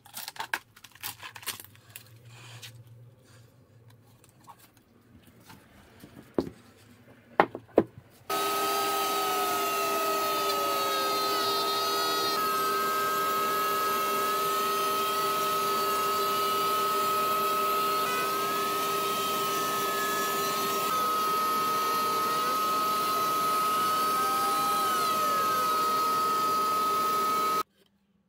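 A few light knocks and taps. Then, about eight seconds in, a compact trim router starts running with a steady high whine that shifts a little in pitch as it cuts, flattening the epoxy and wood panel from a router sled. It cuts off suddenly near the end.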